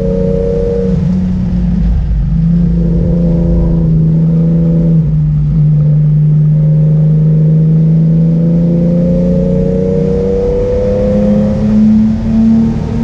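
Classic car's engine and exhaust heard from inside the cabin, pulling at fairly steady revs. The pitch steps up and climbs about three-quarters of the way through, and the level dips briefly a couple of times near the end.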